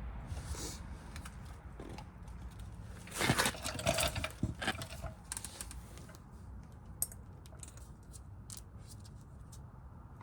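Small clicks, taps and scraping as a greased brake caliper slide pin is handled and pushed back into the caliper bracket, with a short louder clatter about three seconds in, over a steady low hum.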